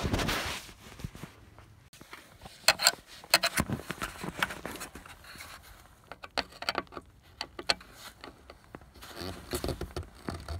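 Screwdriver working a stripped, rusted Phillips screw on a steel bracket: scattered metal-on-metal clicks and scrapes as the tip slips in the chewed-out head.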